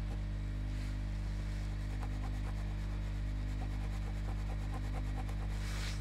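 Steady electrical mains hum, with a few faint light ticks over it.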